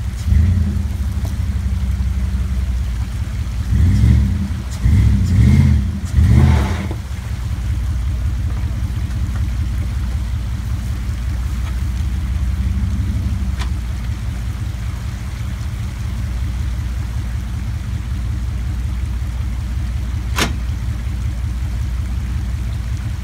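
Dodge Ram 2500 pickup's engine running low and slow as the truck crawls over rocks, with several short bursts of throttle about four to seven seconds in. A single sharp knock sounds near the end.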